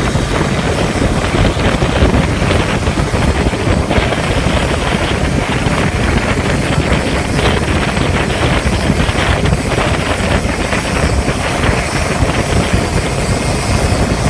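Wind buffeting the microphone over the running noise of a moving Qingqi motorcycle rickshaw: a loud, steady rumble with no clear engine note.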